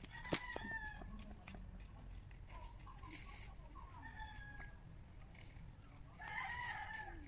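Faint chickens clucking in short scattered calls, with a louder, longer call near the end. A single sharp click comes just after the start.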